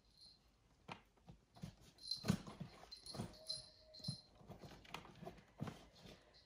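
A Bengal cat making a few short cries, among scattered taps and knocks.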